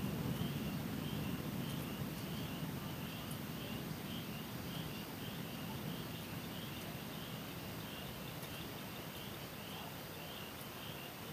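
Distant thunder rumbling and slowly fading away, with a small creature chirping steadily about twice a second.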